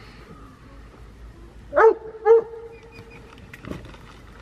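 A dog barking twice in quick succession, about two seconds in.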